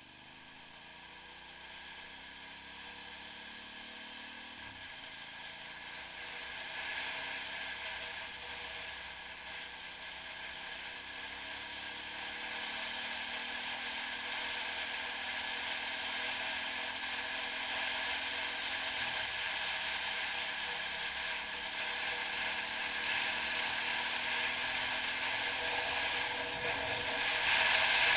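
Motorcycle engine accelerating from low speed, its pitch climbing and dropping back twice as it shifts up through the gears. Wind and road noise build steadily as the bike gathers speed, until they drown out most of the engine near the end.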